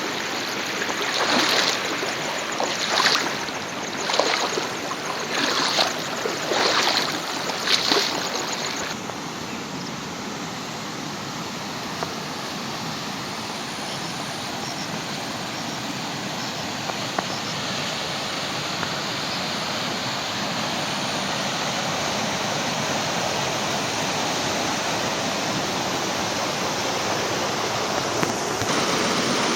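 Rushing water. For about the first nine seconds it comes in splashing surges roughly once a second. Then a cut gives way to a steady, even rush of flowing water that slowly grows louder.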